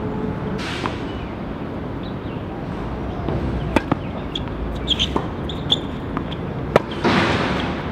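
Tennis balls being struck by rackets and bouncing on the court: a handful of sharp pops, the two loudest about three seconds apart, over steady outdoor background noise.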